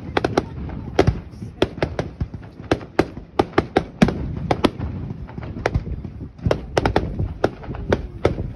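Fireworks display: a rapid, irregular string of sharp bangs and crackling pops from aerial bursts, several a second.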